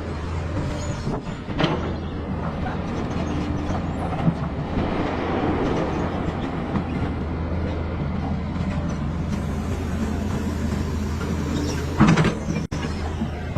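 Caterpillar bulldozer's diesel engine running steadily under load, with occasional metallic clanks, the loudest near the end.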